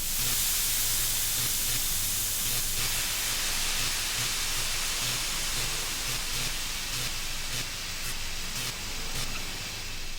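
Sound-effect playback: a loud, steady hiss that starts suddenly and runs on, with a few faint ticks in its later part.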